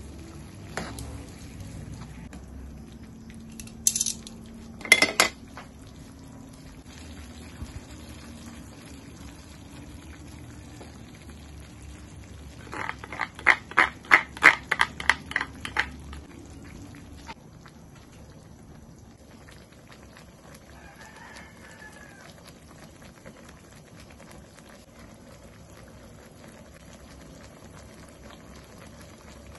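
Chicken simmering in tomato sauce in a nonstick frying pan, with a couple of sharp clicks from metal tongs against the pan about four to five seconds in. Near the middle comes a run of about a dozen quick scrapes, about four a second, as a spatula scrapes sauce out of a small bowl into the pan.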